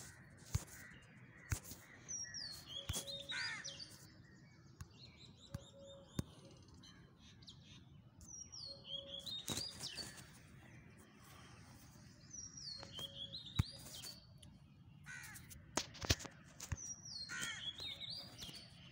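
Birds singing and calling outdoors: a high, sweeping phrase repeats every few seconds, with short lower calls between. A few sharp clicks are scattered through.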